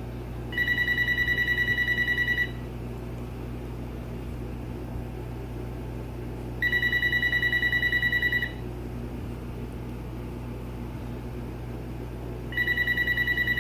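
Electronic ringer of a GE 26990GE1-D 900 MHz cordless phone ringing for an incoming call. It gives three rapidly warbling high-pitched rings, each about two seconds long and about four seconds apart, in the standard ring cadence; the third starts near the end. A faint steady hum runs underneath.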